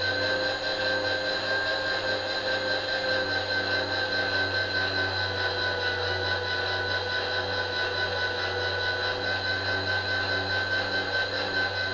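Electric table power feed on an RF-31 mill-drill running steadily at a fast feed rate, its motor and gearing giving a constant hum and whine as it drives the table along.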